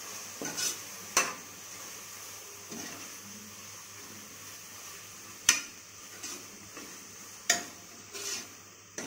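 Metal spoon stirring and scraping onion-tomato masala in a pressure cooker over a steady sizzle. Several sharp clinks of the spoon on the pot stand out, the loudest about five and a half and seven and a half seconds in.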